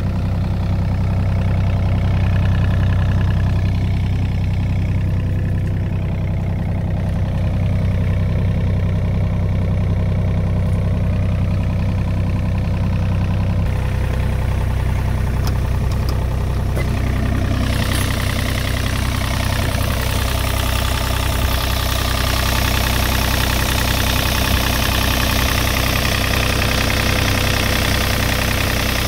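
2009 John Deere 35D mini excavator's diesel engine idling steadily with its engine compartment open. About two-thirds of the way in, a louder rushing hiss joins the idle.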